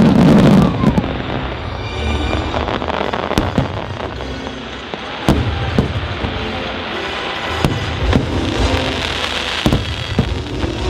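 Aerial fireworks bursting with sharp bangs every second or so, the loudest right at the start, over music playing.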